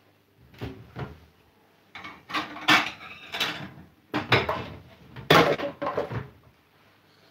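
Kitchen cupboard being opened and shut and ceramic plates knocking and clattering as they are taken out: a series of separate knocks and clinks, loudest about two and a half and five and a half seconds in.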